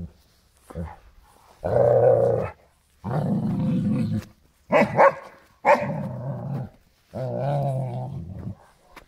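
German Shepherd growling in a series of long growls, with two short sharp barks about halfway through, as it wrestles a car tire it is angry at.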